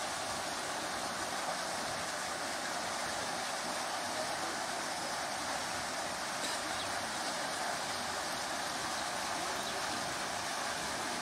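Steady rushing of flowing river water, an even hiss with no separate splashes standing out.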